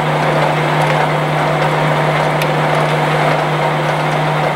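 Blanchard No. 11 rotary surface grinder running under power: a steady mechanical noise with a constant low hum.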